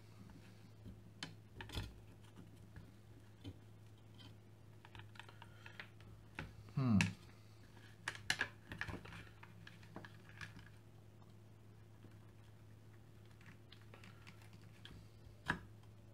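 Small clicks and taps of a circuit board and its wires being handled and set against a plastic base plate, over a faint steady hum, with one louder drawn-out sound about seven seconds in.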